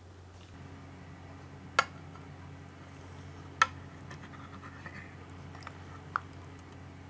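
A spoon scooping baked custard pudding from an enamel container, clinking against the enamel: three sharp clinks about two seconds apart with a few softer taps between, over a faint steady low hum.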